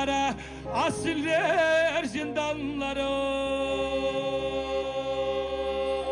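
A man singing live through an amplified microphone: an ornamented, wavering melodic line, then from about three seconds in one long held note.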